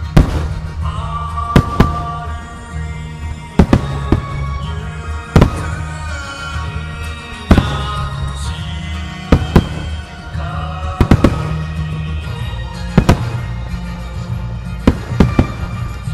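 Aerial firework shells bursting with about a dozen sharp booms, some in quick pairs, over music that plays throughout.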